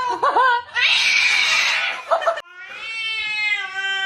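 Domestic cat meowing in long, drawn-out calls that fall slightly in pitch. About a second in there is a breathy, hissy stretch and a couple of short chirping notes, then one long yowl in the second half.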